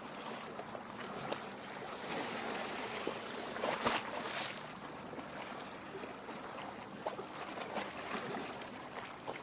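Lake water lapping and gurgling against the shore rocks: a steady wash of small splashes, with a slightly louder splash about four seconds in.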